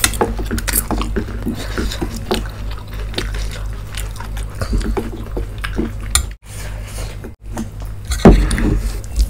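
Close-miked eating sounds: wet, sticky squishing of spicy fried rice and noodles handled by bare fingers, chewing and mouth smacks, and a fork clicking on a steel plate, as many small irregular crackles and clicks. A louder low bump about eight seconds in.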